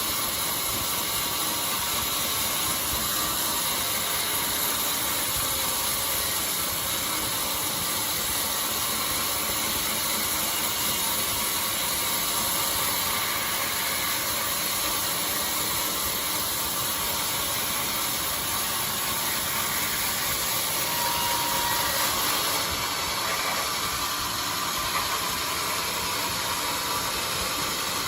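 Band sawmill running steadily, a constant mechanical whir and hiss, changing slightly in tone about 23 seconds in.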